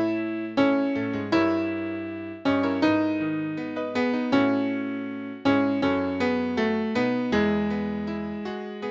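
Piano playing a slow instrumental passage with no singing: chords and single notes struck about once a second, each ringing and fading before the next.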